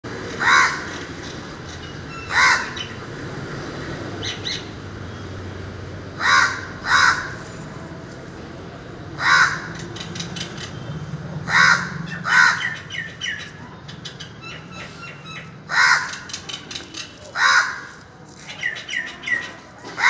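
A crow cawing repeatedly, about ten loud single caws spaced one to three seconds apart, some in pairs, with smaller birds chirping faintly in between and a quick run of short chirps near the end.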